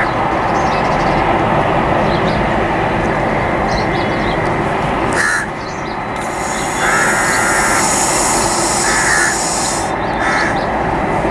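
Crows cawing four times in the second half, over the steady roar of an Airbus airliner's jet engines at takeoff power. A high hiss joins for a few seconds near the end.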